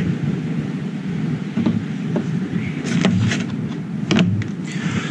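Several light clicks and knocks of camp cooking gear and food containers being handled, over a steady low rumble.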